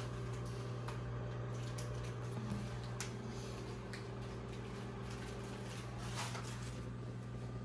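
A steady low hum at one even pitch, with faint scattered clicks and small handling noises over it.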